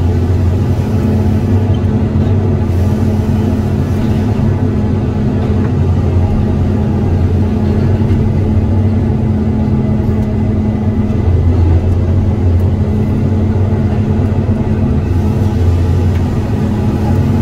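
Diesel engine of a Tigercat 234 log loader running steadily under working load, a deep steady hum that swells and eases slightly.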